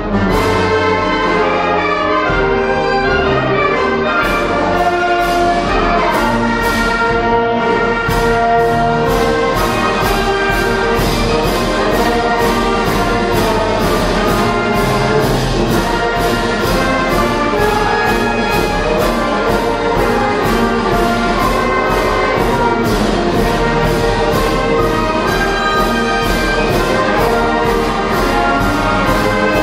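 Concert band of flutes, clarinets, saxophones, brass and bass drum playing a march. A steady percussion beat of about two strikes a second joins about eight seconds in.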